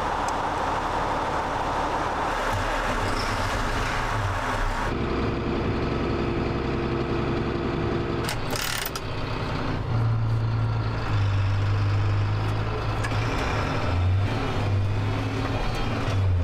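Farm tractor engine running under way, heard from the cab as a steady low drone that gets stronger in the second half. A short hiss sounds a little past halfway.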